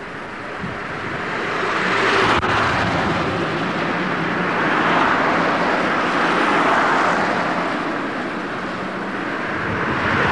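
Road vehicle noise: a steady rushing of tyres and engines that swells about two seconds in, eases off, and swells again near the end.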